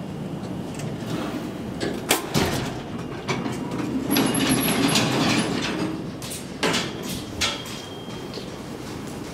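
Metal elevator car doors sliding, with several sharp clunks and a louder rumbling stretch in the middle as the doors travel.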